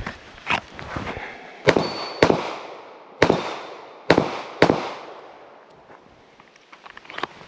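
A string of gunshots in quick pairs about half a second apart, each with a short echo, during a two-on-steel, two-on-paper drill. After a shot about two seconds in, a steel target rings briefly with a high ping.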